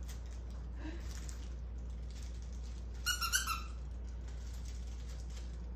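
A puppy giving a quick run of four or five short, high-pitched yips, about three seconds in.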